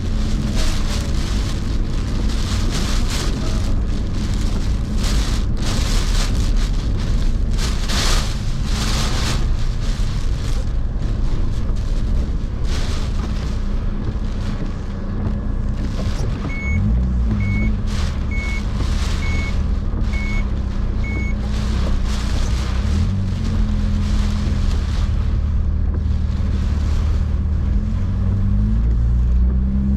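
A vehicle engine running steadily under gusting typhoon wind noise that swells and fades. About halfway through, six short high beeps come roughly a second apart.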